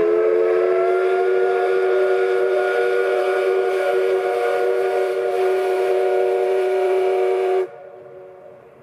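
Whistle of a C11 steam locomotive: one long blast, a chord of several tones held steady for about eight seconds, that stops abruptly near the end, leaving fainter rumble from the passing train.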